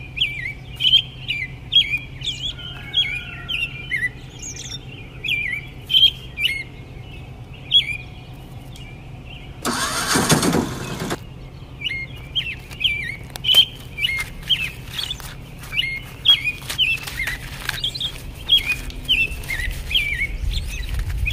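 Small birds chirping over and over in short rising and falling notes, over a steady low hum. About ten seconds in comes one loud burst of noise lasting just over a second, and light clicks and taps are scattered through the second half.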